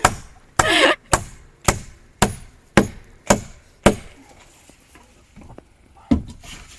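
A hammer striking wood in a steady series of blows about every half second, driving nails into the dugout's roof timber, then a pause and one more blow near the end.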